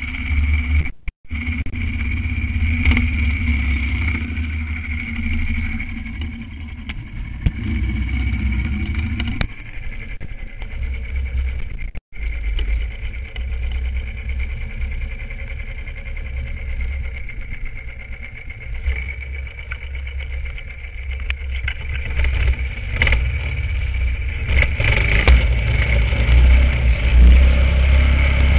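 Vintage snowmobile's two-stroke engine running under way, with a heavy low rumble. The sound cuts out briefly about a second in and again around twelve seconds in.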